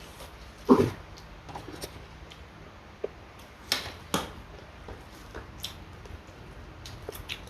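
A person eating close to the microphone: irregular chewing and biting clicks with a few louder knocks, the loudest about 0.7 s in and two more around the middle.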